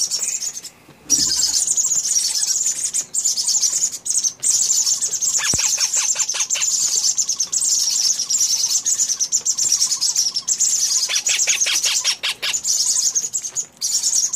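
Parrots chirping rapidly and without pause, high-pitched, with two stretches of harsher, lower chattering calls about a third of the way in and again past the middle.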